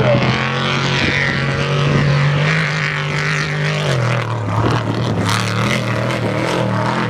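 Off-road race trophy truck's engine running hard as it passes close. The note holds and climbs slightly, drops about four seconds in, then rises and falls in short surges as the truck runs over the whoops.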